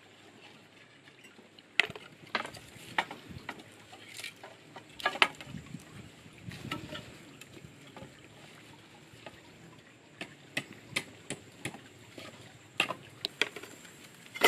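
Irregular sharp knocks and clacks of a knife cutting and splitting bamboo, with loose bamboo pieces clattering as they are handled.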